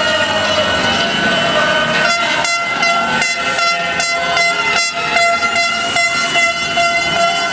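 Several horns, car horns among them, sounding together in long steady held notes. About two seconds in they are joined by a quick rhythmic pulsing of about three beats a second.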